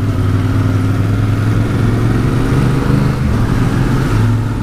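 Yamaha Ténéré 700's parallel-twin engine running steadily under way, with wind noise.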